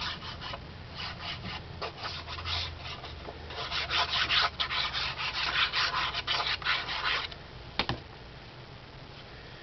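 Sheets of paper and cardstock being handled, slid and rubbed against each other and the work surface in quick scratchy strokes, ending with one sharp tap about eight seconds in.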